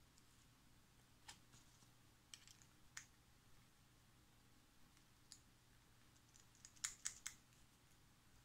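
Faint, scattered clicks of small metal build-plate parts and a hex key being handled and set against each other, with a quick run of three clicks near the end; otherwise near silence.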